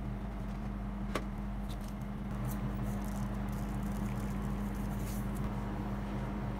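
Steady hum of an ice cream roll machine's refrigeration unit running under the cold plate, with a single sharp click about a second in. Sprinkles rattle lightly a few times from a shaker in the middle.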